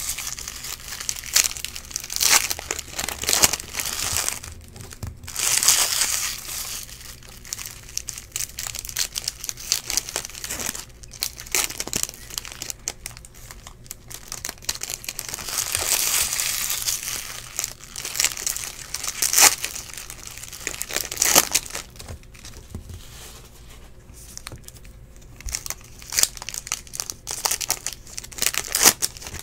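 Foil trading-card pack wrappers being torn open and crinkled by hand, in several bouts of crackling with scattered sharp clicks between them.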